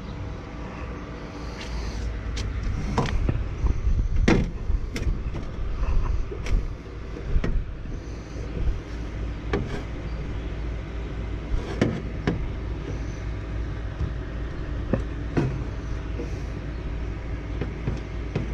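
Scattered clicks, taps and knocks of tools and parts being handled while a replacement run capacitor is wired into an outdoor AC condensing unit, over a steady low rumble.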